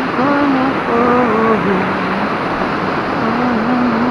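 River rapids rushing steadily over rocks, with a man humming a tune over the water, held notes stepping up and down.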